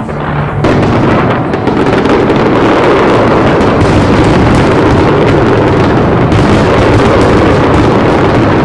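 Dense fireworks barrage: a continuous wall of bangs and crackle that swells sharply about a second in and then stays loud and steady.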